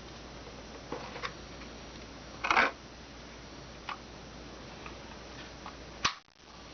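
Keys of a Cooler Master SK620 low-profile mechanical keyboard with Cherry low-profile red (linear) switches being pressed one at a time: about seven separate clacks, the loudest a quick double strike about two and a half seconds in. The board is stock and unlubricated, and its keys have a pinging ring that the owner finds serious.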